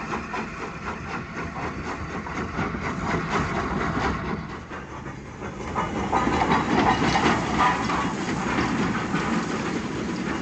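Steam locomotive in a station: a steady hiss of steam with irregular clanks and rattles, dipping briefly about five seconds in and then louder.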